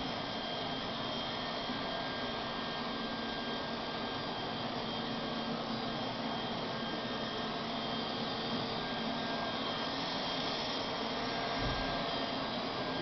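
Handheld leaf blower running steadily: a constant rush of air with a faint steady whine.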